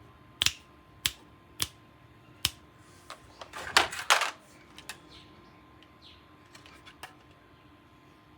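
Toy gun being handled and worked: four crisp plastic clicks, then a louder burst of clacking and rattling about four seconds in, followed by a few faint ticks.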